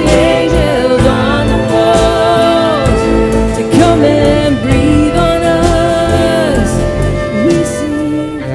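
Live worship music: a woman singing long, sliding held notes over keyboard and band accompaniment. Near the end the singing stops and the music drops back to a quieter sustained chord.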